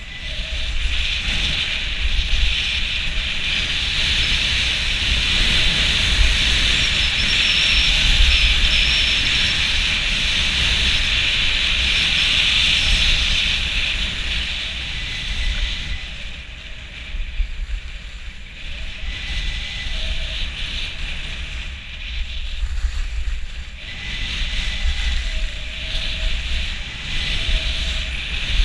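Skis hissing and scraping over packed snow during a downhill run, with wind rumbling over a helmet-mounted GoPro Hero4. The hiss is loudest in the first half, dies down about halfway through and picks up again near the end.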